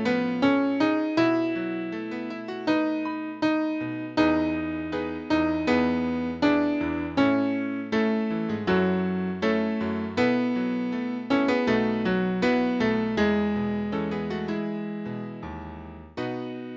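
Piano playing a slow, gentle melody over chords, with no singing. Each note is struck and dies away, and the last chord fades out near the end.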